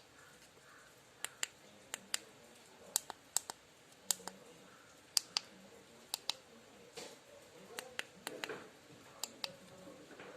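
Small tactile push buttons being pressed to step through a menu: an irregular run of about twenty short, sharp clicks, often in quick pairs.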